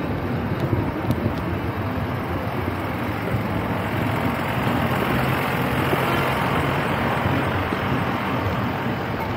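Diesel engines of tractors and lorries running at idle: a steady low engine rumble with street noise around it.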